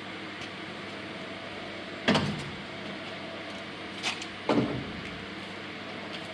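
CNC vertical milling machine humming steadily during a tool change, with a sharp knock about two seconds in and two more close together about two seconds later as the tool holder is released and seated.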